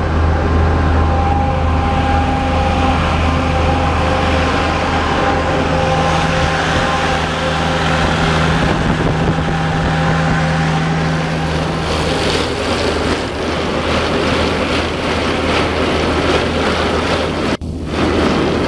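Screen USA Tornado Star 4012 screening plant running, its engine and drive giving a steady low hum with several held tones. About twelve seconds in the sound turns rougher and noisier, with a fast flutter, and it drops out for an instant near the end.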